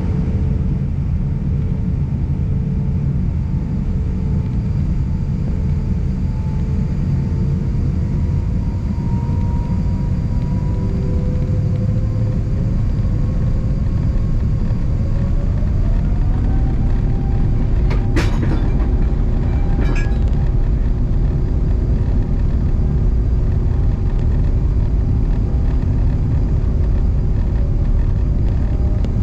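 Cabin rumble of an Airbus A350-900 with its Rolls-Royce Trent XWB turbofans, engine tones slowly rising in pitch and climbing more steeply about sixteen seconds in as the engines spool up for take-off. Two sharp knocks come a couple of seconds apart soon after.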